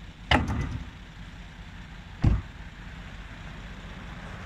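Two vehicle doors slammed shut about two seconds apart, the first with a short rattle of clicks after it, over a low steady rumble.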